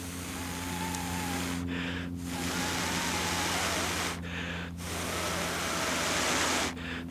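A person blowing hard onto a smouldering cramp ball fungus (Daldinia concentrica) ember held in the hand: long rushing blows, each about two seconds, broken by short pauses for breath, with another blow starting near the end. The air keeps the damp tinder from dying out while it takes.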